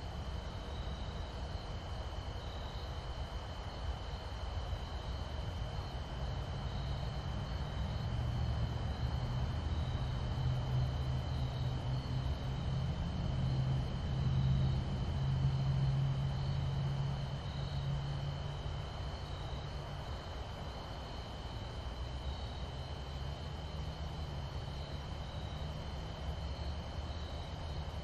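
A steady, high, thin insect trill, likely crickets, runs over a low distant engine drone. The drone grows louder toward the middle and then fades away.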